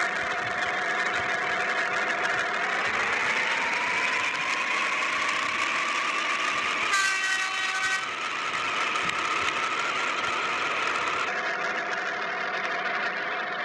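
A heavy vehicle's engine running steadily, with a whine that rises in pitch a few seconds in, and a horn sounded once for about a second midway through.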